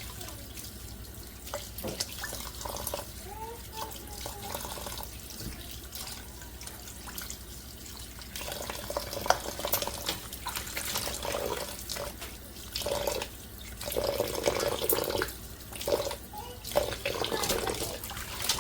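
Kitchen tap running into a sink with irregular splashing as a whole laying hen is washed, the splashing growing louder and busier about halfway through.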